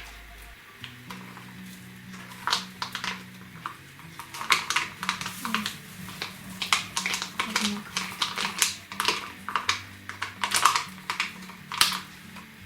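Hand gum (slime) being squeezed and pulled in the hands, giving quick irregular sticky clicks and pops, with faint background music underneath.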